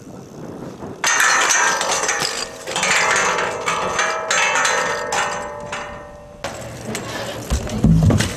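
BMX bike crash on a steel stair handrail: a sudden loud metal clang about a second in, followed by several seconds of ringing clatter and scraping as bike and rider come down on the rail and concrete steps. A heavy thud near the end.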